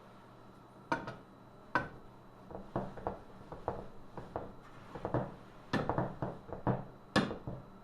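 Irregular metallic clinks, knocks and short scrapes of hand work on a metal table-saw part being cleaned of rust, about a dozen strikes spaced unevenly.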